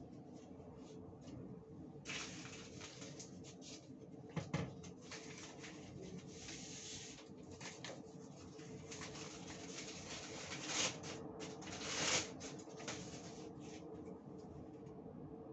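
Tissue paper rustling and crumpling in the hands as something is wiped with it, with a single knock about four seconds in, over a faint steady hum.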